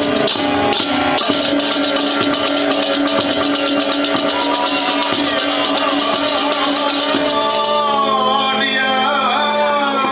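Balinese gamelan music: fast, dense cymbal clashing and drumming over steady ringing tones. The cymbals stop near the end, leaving a sliding, wavering melody line.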